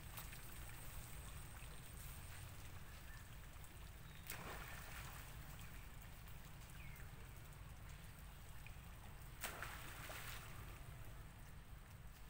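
Faint outdoor ambience: a steady low rumble with two brief, faint sharp sounds, about four and a half and nine and a half seconds in.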